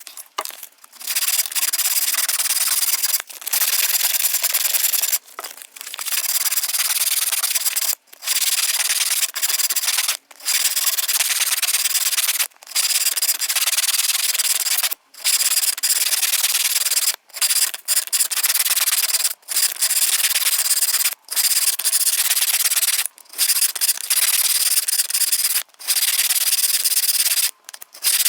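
Sandpaper rubbing on the wooden comb by hand, in runs of a second or two broken by short pauses.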